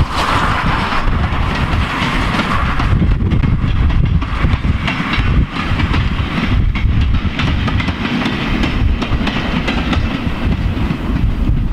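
A goods train hauled by a rebuilt Bulleid Battle of Britain class steam locomotive, No. 34053, passing. Its wagons roll by with the clickety-clack of wheels over rail joints, while strong wind rumbles on the microphone.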